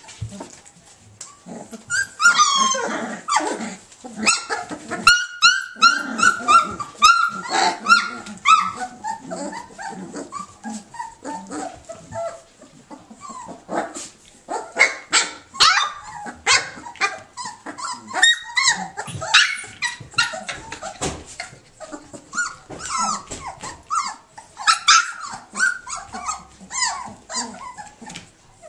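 A litter of standard poodle puppies yipping and whining as they play and jostle, with many short high-pitched calls overlapping one another from about two seconds in.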